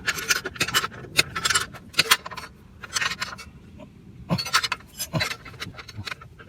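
Wrench working the bolts on a TaoTao ATV's chain adjuster, tightening them back down: short bursts of metal clicking and scraping, several times with pauses between.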